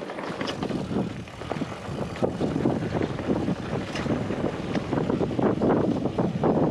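Mountain bike rolling fast down a dirt and rock trail, the frame and parts rattling with frequent small knocks over the bumps, under heavy gusty wind buffeting the action camera's microphone.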